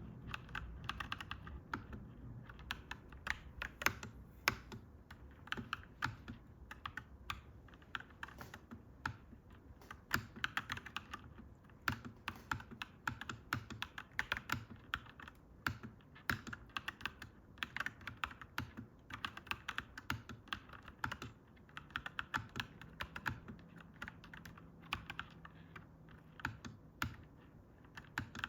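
Fast, irregular typing on a clacky mechanical keyboard, keys clacking in quick runs with short pauses. A faint low hum sits underneath in the last few seconds.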